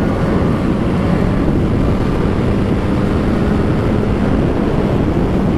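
Yamaha XJ6N's inline-four engine running steadily while the motorcycle is ridden, mixed with wind rushing over the microphone.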